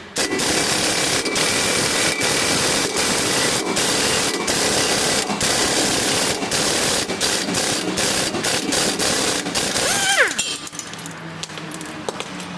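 Air-powered shop tool run hard for about ten seconds as a loud, dense hiss-and-rattle with brief breaks in the trigger. It winds down with a falling whine near the end.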